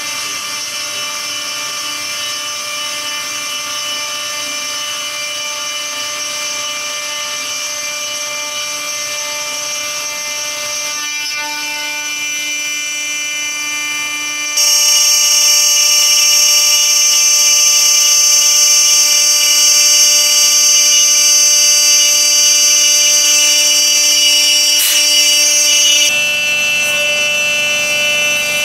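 CNC router spindle running with an end mill milling an aluminium plate: a steady high-pitched whine over cutting noise. About fifteen seconds in it jumps sharply louder and shriller, and it changes again a couple of seconds before the end.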